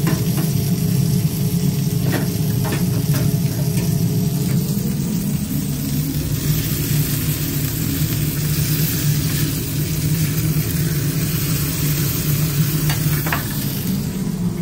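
Hot oil bubbling in a deep fryer around onion rings, then beef patties sizzling on a flat-top griddle as metal spatulas press and scrape them, over a steady low drone. A few sharp metal clicks come near the start and again near the end.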